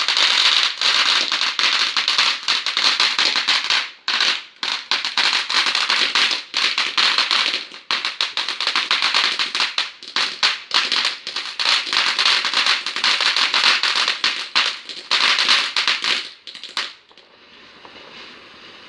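Fireworks crackling: a loud, dense, rapid run of crackles and pops with a few brief dips, dying away about seventeen seconds in.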